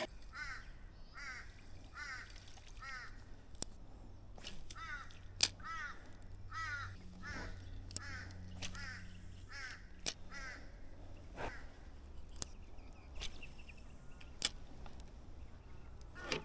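A bird calling over and over, short calls repeated about one and a half times a second, stopping about ten seconds in.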